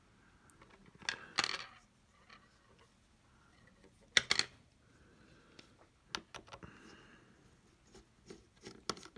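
Scattered light clicks and scrapes of a small screwdriver and tiny metal parts working on an opened iPhone 6s, as the screws holding the battery are taken out; the sharpest click comes about four seconds in, with a quick run of ticks near the end.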